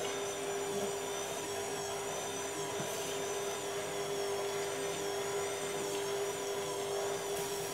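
Electric stand mixer motor running at a steady speed with a constant whine, its beater mixing crumbly pastry dough in a steel bowl.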